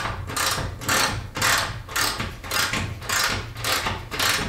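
Hand ratchet wrench clicking in short repeated strokes, about two a second, while fastening the newly fitted radiator.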